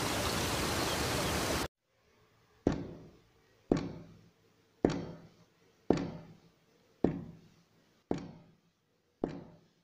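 A steady rushing water-like noise cuts off suddenly. Then come seven evenly spaced dull thuds, about one a second, each dying away quickly.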